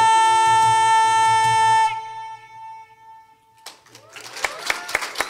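A live band ends a song on a long, steady held high note over piano chords and percussion, and stops about two seconds in. After a short hush, the audience breaks into applause and cheers near the end.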